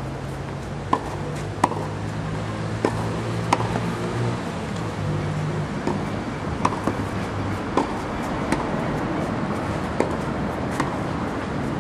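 Tennis ball struck by racket again and again in a quick volley exchange at the net: sharp pops about once a second, some louder than others. A steady low hum runs underneath.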